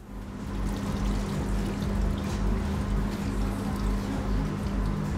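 Beef broth pouring and dripping back into a large cooking kettle off a wire skimmer full of boiled beef bones, with background music.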